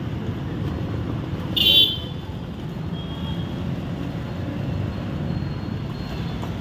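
Steady rumble of street traffic with a short, loud vehicle horn honk about one and a half seconds in, and a fainter honk about three seconds in.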